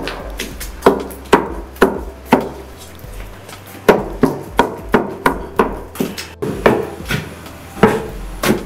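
A wooden pestle pounds soft cooked food in a wooden mortar, making dull thuds about two a second. A short pause comes around three seconds in, then a quicker run of strokes about three a second.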